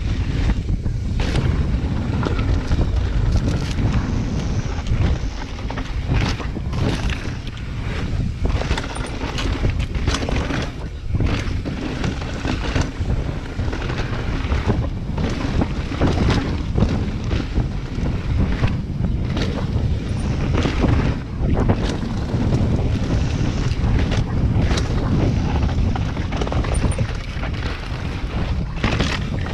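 Wind rumbling on an action camera's microphone as a mountain bike rides fast down a rocky dirt singletrack, with frequent irregular clacks and rattles from the bike and tyres over rocks.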